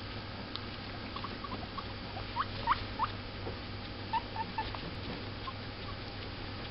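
Guinea pigs squeaking: a string of small, short squeaks, then three quick rising squeaks, the loudest, a little over two seconds in, and a few more short squeaks around four seconds.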